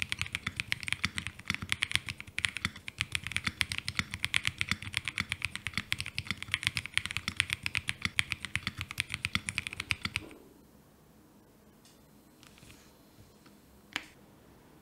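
Rapid typing on a Leobog K81 mechanical keyboard with its stock, unmodified switches and stabilizers: a dense run of key clacks that stops about ten seconds in, followed by quiet and one lone click near the end.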